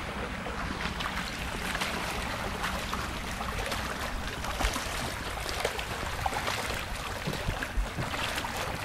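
Floodwater flowing along a street, a steady rush with repeated short splashes of boots wading through it.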